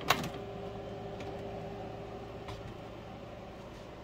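A sharp knock, then a plywood drawer sliding out on metal drawer slides, over a steady low hum; a faint tick comes about halfway through.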